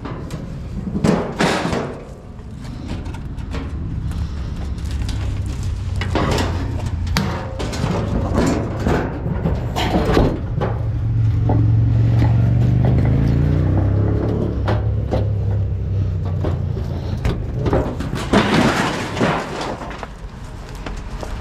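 Truck engine running, with scattered knocks and rattles; about halfway through the engine revs up in a rising pitch.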